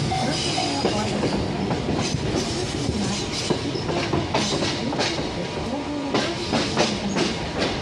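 Choshi Electric Railway train running, heard from inside the carriage: a steady rumble with the wheels clacking over rail joints, the clacks coming more often in the second half.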